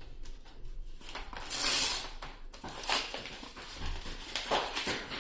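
Rustling and crinkling as trading-card booster packs and cards are handled, in a few irregular bursts with the longest about a second and a half in.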